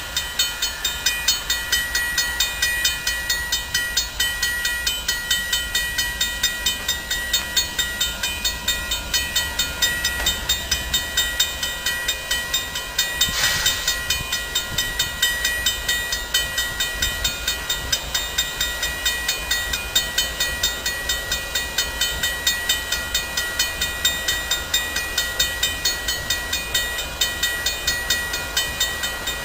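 CSX diesel freight locomotive approaching slowly, its engine a steady low rumble. A regular ticking about three times a second and a steady high whine run under it, with a brief hiss about halfway through.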